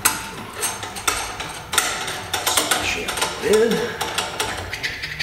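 Metal clinking and rattling as a cutter is fitted into a benchtop milling machine's collet and the drawbar on top of the spindle is tightened down by hand. A short, low voice-like sound comes about three and a half seconds in.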